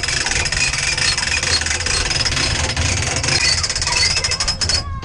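Electric winch running, starting abruptly and cutting off suddenly near the end, with a dense rapid rattle to its motor and gear noise.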